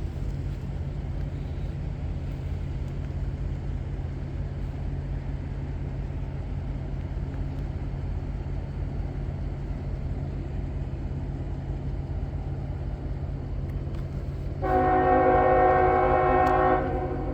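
A steady low rumble, then, near the end, one long blast of a diesel locomotive's Nathan K5HL five-chime air horn, a loud chord of several notes held for about two seconds, with an echo.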